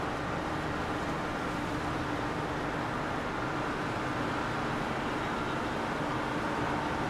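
Steady drone of a small cargo ship's engines as it moves slowly under way, with water churning at its bow.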